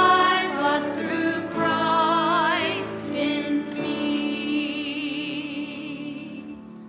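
A small group of women's voices singing the last line of a hymn with vibrato, over piano and acoustic guitar, the final chord held and fading away near the end.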